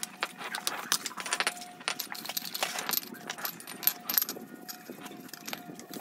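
Brushes scrubbing wet metal compressor parts: irregular scraping and splashing with sharp metallic clinks as the parts knock against each other and the floor.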